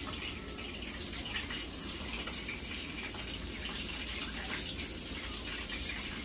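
A steady hiss in the background, with faint crunches as a whole beer-battered fried smelt is chewed.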